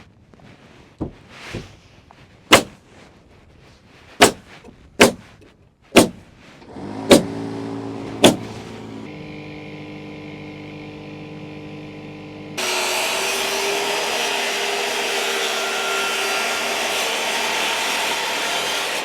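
About eight sharp knocks, like hammer blows on wood, spaced roughly a second apart. A machine starts running under the last few, and about two-thirds in it is joined by a much louder, rougher running sound, like a power tool cutting.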